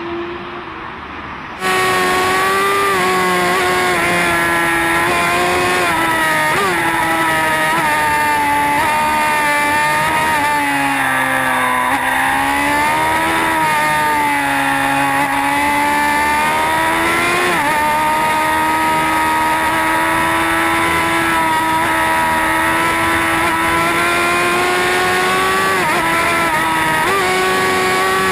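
Superbike engine held at high revs at speed, with wind rush; starts abruptly about two seconds in, then the engine note sags and climbs back about halfway through before holding steady again.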